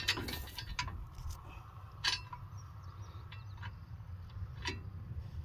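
Sharp metal clinks and knocks as a steel three-point quick hitch is worked against the tractor's lower lift arms, four or so separate strikes with the loudest about two seconds in, over a steady low rumble.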